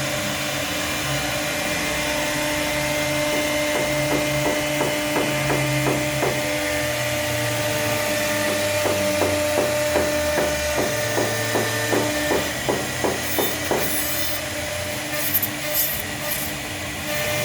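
CNC router spindle running with a steady whine while carving wood. A run of regular ticks, about two to three a second, comes through the middle, and a few short scratchy bursts follow near the end.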